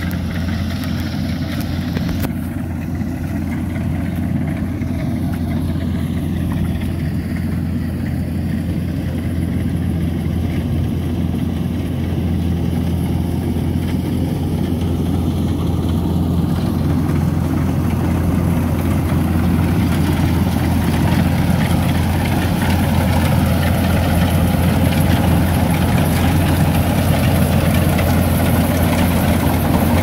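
Steady diesel drone of a rice combine harvester's engine, with a constant low hum, slowly getting louder through the second half.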